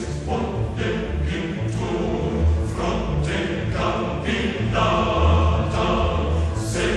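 Background music: dramatic choral music, a choir singing over orchestra with heavy low bass notes.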